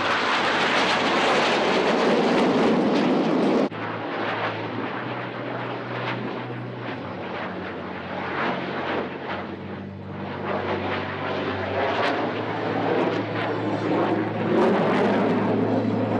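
Military jet aircraft flying a display overhead: a loud rushing engine noise that cuts off abruptly about four seconds in, followed by a quieter, steadier engine drone with a low hum that swells again near the end.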